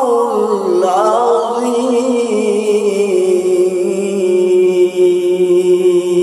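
A male qari's solo voice chanting in Arabic melodic style into a microphone: an ornamented, wavering phrase slides downward, then settles about two seconds in into one long held note.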